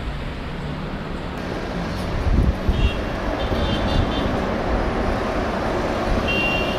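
Airbus A330-300 airliner's jet engines rumbling as it rolls out along the runway after landing, the noise swelling about a second and a half in. A few short high chirps sound over it.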